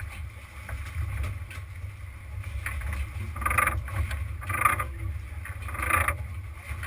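Sportfishing boat on the water: a steady low rumble, with several short bursts of rushing noise a second or so apart in the second half.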